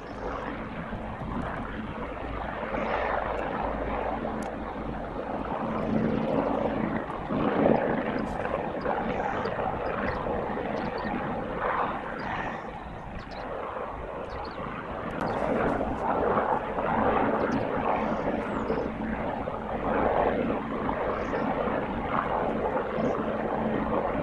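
Bell 412 helicopter in flight at a distance with a chimney section slung beneath it, its rotor and turbine engines making a steady noise that swells and eases every few seconds.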